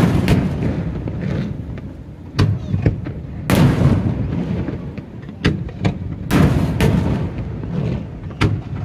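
Aerial fireworks shells bursting: about ten sharp booms at uneven intervals, each trailing off in a low rumbling echo. The heaviest booms come about three and a half and six to seven seconds in.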